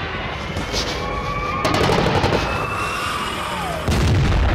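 Wartime sound effects: a siren wailing in long, slowly gliding tones, a burst of rapid gunfire about two seconds in, and a loud explosion near the end.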